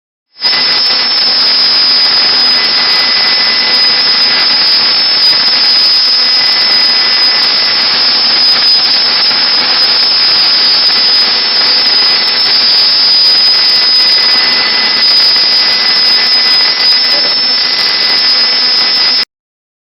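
CNC router spindle cutting wood: a loud, steady cutting hiss under a constant high whine, starting abruptly and cutting off shortly before the end.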